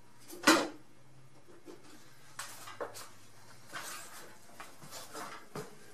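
A sharp knock about half a second in, then scattered lighter knocks and clatters, as of hard objects being handled and set down.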